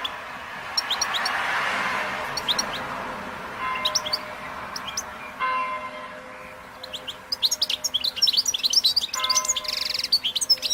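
Goldfinches calling: short, high chirps, scattered at first and then coming fast and densely about two-thirds of the way in.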